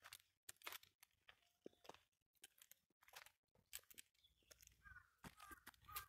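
Footsteps crunching on a dirt and leaf-litter hiking trail, an irregular step every half second or so. A bird gives a few short chirping calls near the end.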